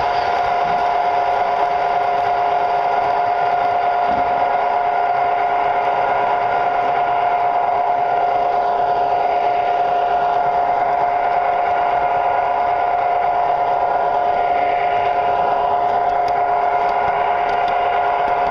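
Tinplate model train running steadily on its track, heard from on board: a constant whine from the electric motor and gearing over the rumble of wheels on the rails.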